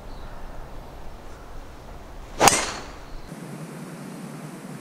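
Driver striking a golf ball off the tee: one sharp crack about two and a half seconds in, with a short ringing tail.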